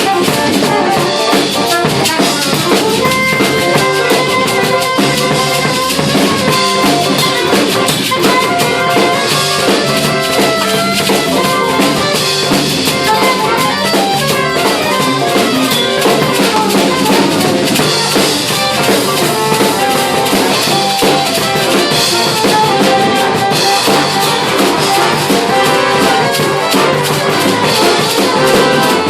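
Big band playing: brass section over a swinging drum kit with cymbals and rimshots.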